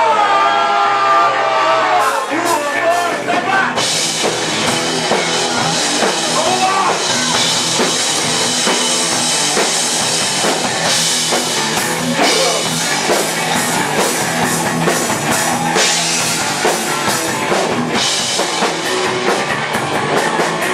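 Live rock band playing loudly: a gliding melodic line at first, then the drum kit and cymbals come in a few seconds in and the full band plays on.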